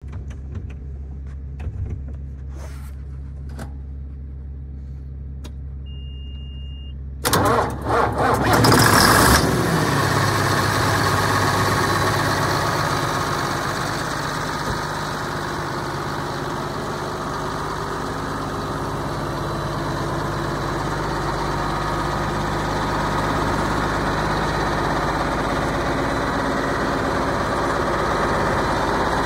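John Deere 4555 tractor's six-cylinder diesel engine being started: a short beep, then about seven seconds in the engine cranks and catches with a couple of surges. It settles into a steady idle.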